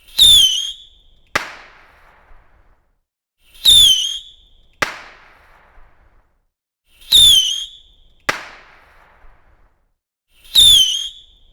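Whistling firework rockets going off one after another: each gives a short, high whistle that dips slightly in pitch, then about a second later a sharp bang that trails away. Four in a row, about every three and a half seconds, the last bang coming right at the end.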